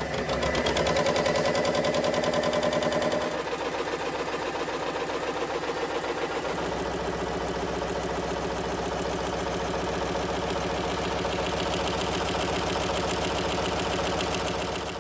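Homemade scrollsaw running, its motor fed by a variable frequency drive. The blade strokes up and down as a steady, rapid mechanical chatter whose tone shifts about three seconds in and again after about six and a half seconds.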